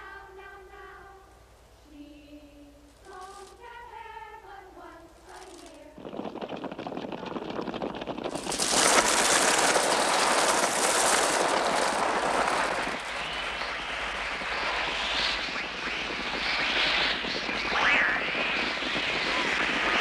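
Film soundtrack of a crow attack. After a few seconds of soft voices, a dense din of wingbeats and harsh, shrieking bird cries sets in suddenly about six seconds in and turns loud about two seconds later, mixed with children screaming. The bird sounds are made electronically.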